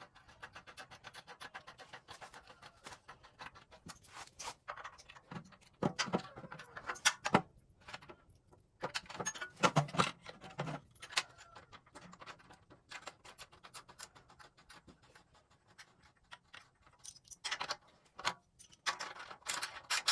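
Ratchet wrench clicking in runs of rapid ticks as the bolts holding a tractor radiator are run in and tightened, with a few louder metal clinks among them.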